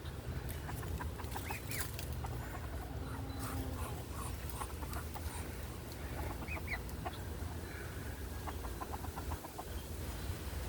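Ducks and a rooster at feed making soft, scattered clucking calls, with a quick run of short calls near the end, over a steady low rumble.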